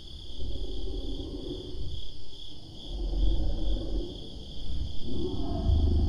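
Crickets chirping in a steady, evenly pulsing chorus. A low rumbling swells and fades three or four times under it, loudest near the end.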